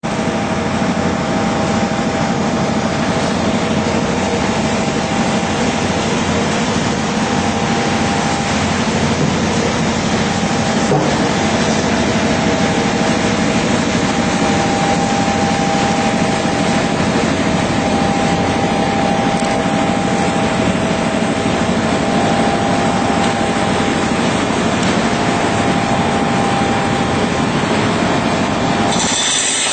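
ERNST PLUTON sheet-metal deburring machine running, a steady mechanical noise with a constant hum.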